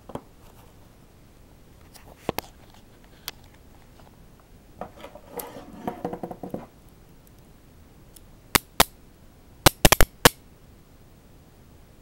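Steel chain handcuffs (Peerless Model 700) being handled: a couple of light clicks, then a jingling rattle of the cuffs and chain for about two seconds, then a quick run of sharp metal clicks near the end.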